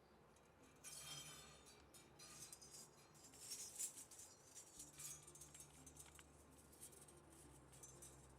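Faint handling sounds of a banding strap being wrapped around a pipe: light scattered clicks and rustles.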